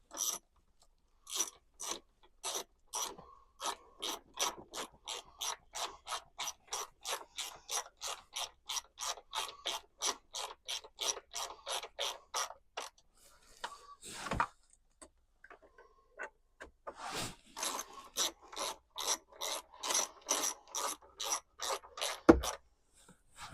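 Hand ratchet wrench clicking as it swings back and forth, turning a dashboard fastener, about three clicks a second. The clicking pauses halfway with a single knock, resumes, and ends with a loud knock.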